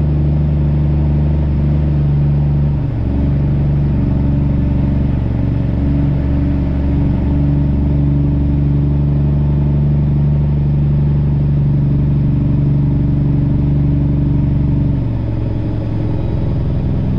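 Straight-piped heavy truck diesel engine with no mufflers, heard from inside the cab as the truck pulls away at low speed. The engine note steps about three seconds in and drops back near the end.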